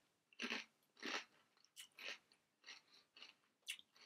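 Someone chewing puffed pork crackling (pork scratchings) with the mouth closed: a run of dry crunches about every half-second, loudest in the first second or so and growing fainter.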